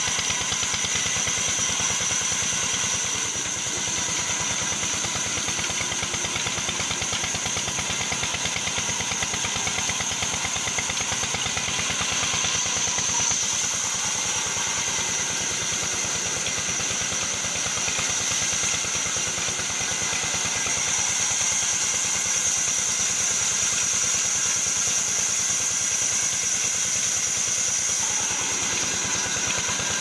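Vertical band sawmill (aara machine) running steadily while ripping a log lengthwise along its table. It gives a constant, engine-like mechanical drone with a steady high whine over it.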